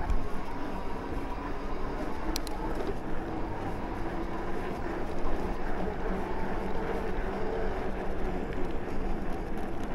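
Steady riding noise from an electric mountain bike: wind on the action-camera microphone and tyres rolling, with a faint steady hum underneath.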